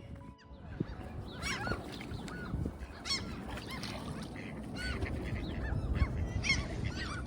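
A flock of gulls calling, many short arching cries overlapping one after another, over a steady low rumble.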